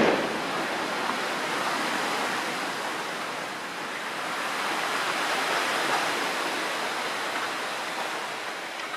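Wind through the leaves of a bamboo grove, a steady rushing hiss that swells and eases.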